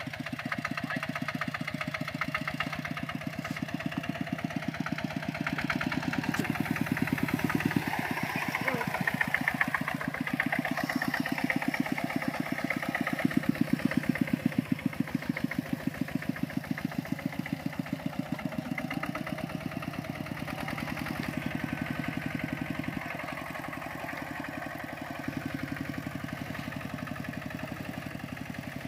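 Single-cylinder diesel engine of a Kubota RT120 walking tractor running with a fast, even chugging as it pulls through mud and water. It gets louder around the middle and eases a little near the end.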